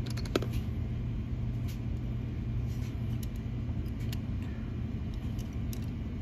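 A steady low background hum, with a sharp click just under half a second in and a few faint clicks later as a die-cast toy car is turned in the fingers.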